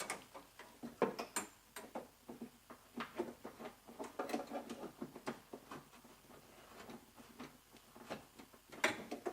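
Light, irregular metal clicks and taps of a socket wrench being fitted to and worked on a 10 mm nut inside a car door, with a louder knock near the end.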